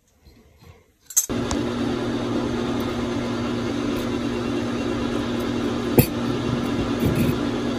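A steady machine hum with a rush of air, like a fan or heater running, that starts abruptly about a second in. About six seconds in, a single metal clink as a steel clutch release bearing assembly is set down on a wooden bench.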